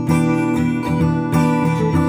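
Background music: acoustic guitar strumming with a steady beat.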